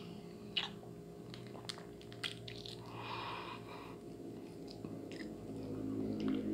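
Balut being eaten up close: sharp little clicks and cracks of the duck eggshell being peeled and bitten, with chewing between them and a short soft noisy sound about three seconds in.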